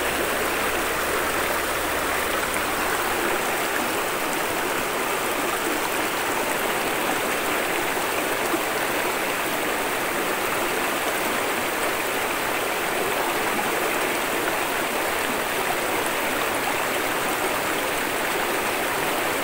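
Shallow rocky river flowing steadily, water rushing over a riffle of stones.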